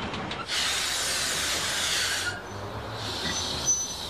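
Steam hissing from the replica Stephenson's Planet locomotive as it is braked to a stop. A loud hiss lasts about two seconds and cuts off sharply, then a softer hiss carries on with a faint thin high tone.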